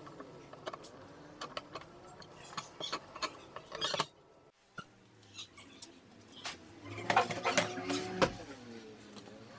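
Small sharp clicks and snips from hand snips, then after a brief gap a series of louder wooden knocks and bumps as a plywood panel is handled against a vertical panel saw frame.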